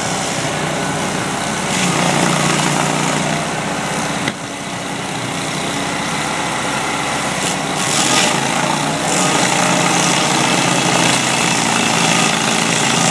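Stump grinder's engine running steadily under load, a little louder about two seconds in and again about eight seconds in.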